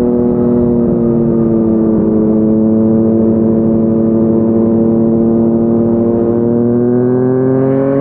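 Yamaha MT-09's inline-three engine through a Yoshimura R55 slip-on exhaust, cruising at steady speed. The note eases slightly at first, holds even, then rises over the last second or two as the revs climb.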